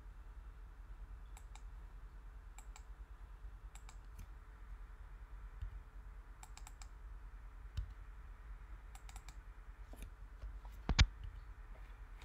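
Computer mouse and keyboard clicks, scattered and irregular, while working in CAD software, with one louder knock near the end over a faint low hum.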